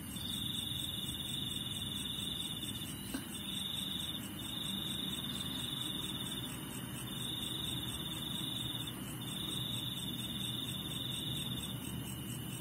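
Insects trilling: a steady high-pitched trill in long phrases of one to three seconds with short breaks, over a low background hiss. A faint click comes about three seconds in.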